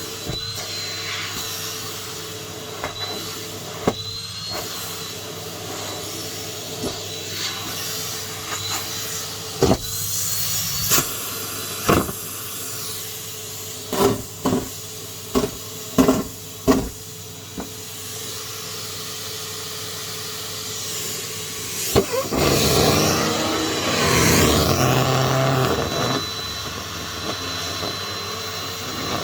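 Numatic James cylinder vacuum cleaner running steadily with a faint high whine. There is a run of sharp knocks in the middle, and a louder rushing rattle lasts a few seconds near the end.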